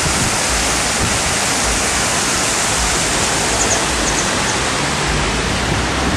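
Water pouring through the sluices of a canal lock gate: a steady, loud rush.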